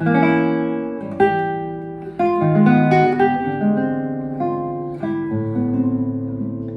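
Nylon-string classical guitar playing a short chord movement: an F minor six shell chord moving out to a diminished chord and on, about five chords each struck and left to ring.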